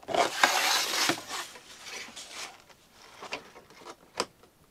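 A pleated motorhome window blind being slid open by hand: a loud rustling slide for about a second, fainter rustling after it, then a few clicks, the sharpest near the end.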